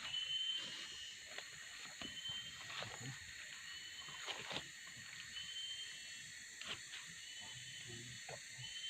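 Tropical forest insect chorus, a steady layered high drone, with a short high call repeated every couple of seconds and scattered faint clicks and rustles.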